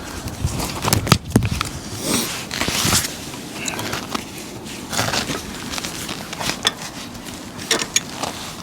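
Irregular clicks, taps and rustling of hands working electrical cables and small plastic fittings into a junction box.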